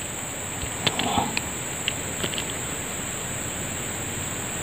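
Steady high-pitched drone of insects calling, with a few faint clicks and rustles in the first two seconds from hands handling a small freshly caught fish.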